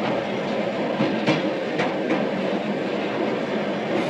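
Soviet suburban electric train (elektrichka) running, heard from inside the carriage: a steady rumble of the moving train with sharp clacks of the wheels over rail joints, a few of them between about one and two seconds in.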